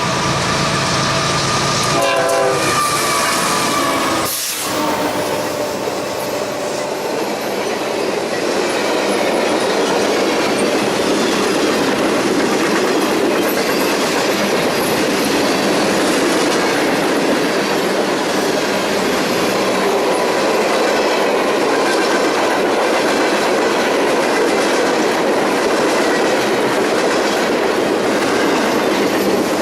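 A freight locomotive's horn sounds briefly and cuts off about four and a half seconds in. The train's cars then roll past with a steady rumble of wheels on rail and a clickety-clack over the rail joints.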